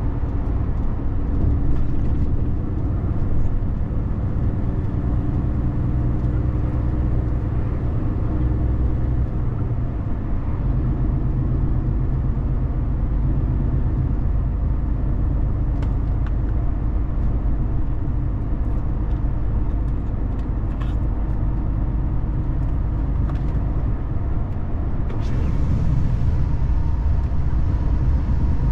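Road vehicle being driven steadily: a low engine hum and tyre rumble, with a few brief clicks, and louder road noise near the end.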